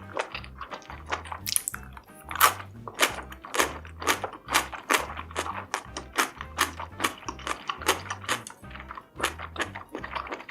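Close-up eating sounds: quick, sharp biting and chewing clicks, two or three a second, over background music with a steady bass beat.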